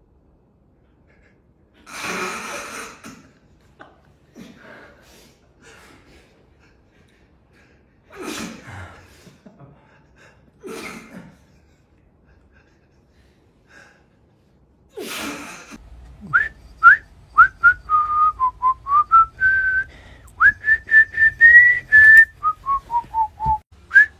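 A person whistling: first a few breathy puffs of air, then, from about two-thirds of the way in, a run of short, clear whistled notes that rise and fall in pitch like a tune.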